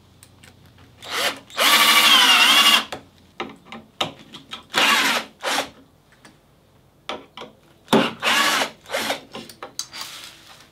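Power drill running into the wooden jig in three or four short bursts, the first and longest lasting about two seconds, its pitch wavering, with light clicks between the runs.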